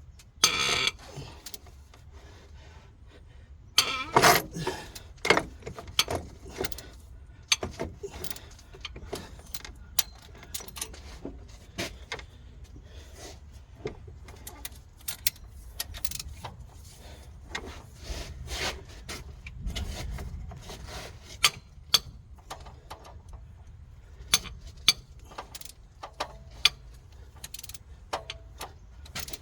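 Irregular metallic clinks, taps and knocks of hand tools and loose metal engine parts being handled during camshaft removal, with a louder clatter about four seconds in.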